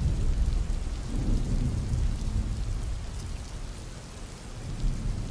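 Thunder rumbling over steady rain. A deep rumble rolls in at the start and dies away over a few seconds, with a smaller swell near the end.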